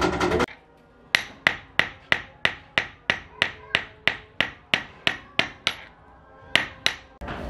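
Hand hammer striking the end of a thin metal wire on a round metal anvil block, in a steady run of blows about three a second, each with a short metallic ring. After a brief pause come two more blows.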